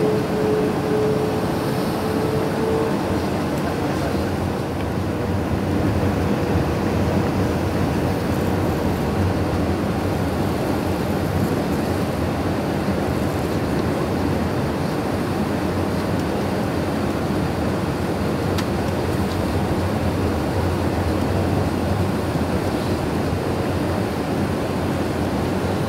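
Airbus A319 cabin noise on approach with flaps extended: a steady rush of engines and airflow. A faint steady whine lies over it for the first few seconds, rising slightly before it fades out.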